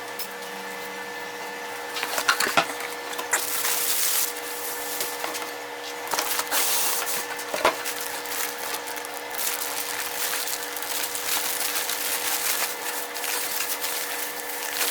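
Parts being handled and rubbed against each other, with scattered sharp clicks and knocks over a steady hum.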